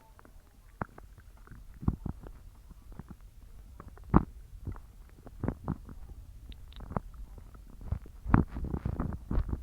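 Stomach growling: irregular short gurgles and pops of gas and fluid moving through the gut. The loudest pop comes about four seconds in, and a quick run of gurgles comes near the end.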